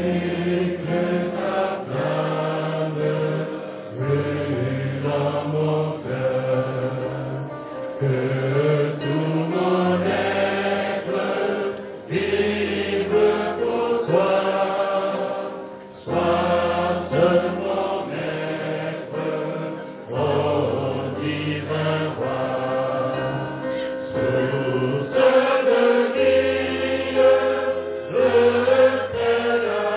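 Congregation singing a slow hymn together in long held notes, the phrases changing every few seconds over steady low notes.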